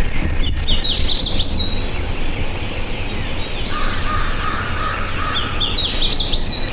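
A songbird singing at dawn: a quick run of about five whistled notes, each sweeping upward and climbing in pitch, sung twice, near the start and again near the end. A rougher, lower bird call sounds in the middle. A steady low rumble runs underneath.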